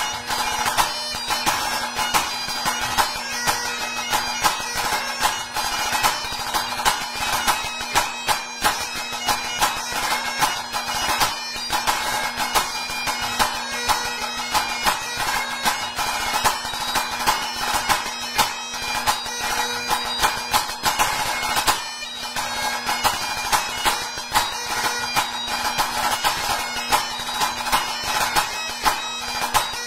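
Great Highland bagpipe playing a tune over its steady drones, with a pipe band snare drum played alongside it in rapid, crisp strokes and frequent sharp accents.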